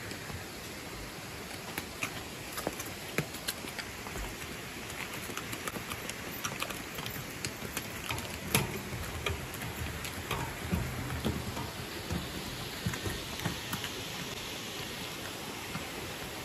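Water: a steady rush with many irregular drips and small splashes ticking through it.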